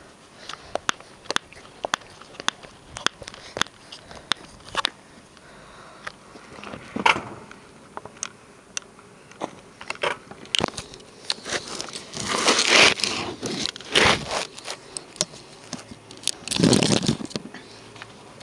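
Ryobi petrol hedge trimmer being cold-started: its primer bulb is pressed over and over in a string of soft clicks, then the recoil starter cord is pulled several times, each pull a short rasping whirr, without the engine catching.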